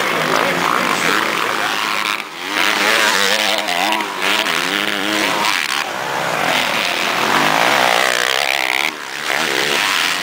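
Motocross bike engines revving hard, their pitch climbing and dropping again and again as the riders accelerate and shift. The sound dips briefly about two seconds in and again near the end.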